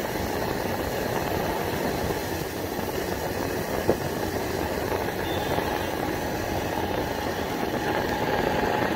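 Motorcycle being ridden at speed, its engine running steadily under a constant rush of road and wind noise. A brief click comes about four seconds in.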